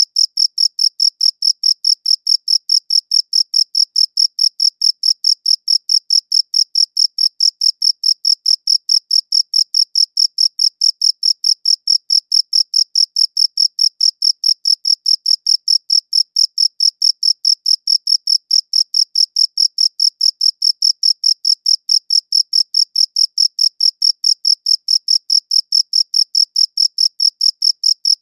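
Cricket chirping in a fast, even, unbroken rhythm of about five high-pitched chirps a second.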